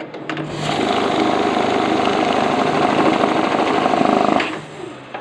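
Glory GNH-710 banknote counting machine running for about four seconds, a steady whirring flutter that follows a few clicks and stops suddenly: a test run of a counter being repaired for miscounting.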